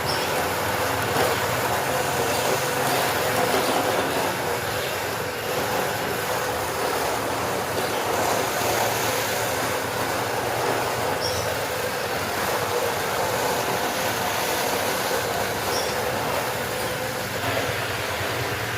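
Carpet being washed by machine: a small motor hums steadily under a continuous hiss.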